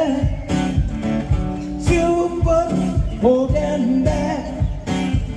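Live band playing an upbeat rock-and-roll song with a steady beat and guitar, with a singing voice over it.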